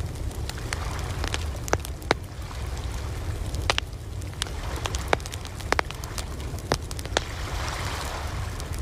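Campfire crackling with irregular sharp pops, over a steady low rumble and the wash of ocean waves, which swells near the end.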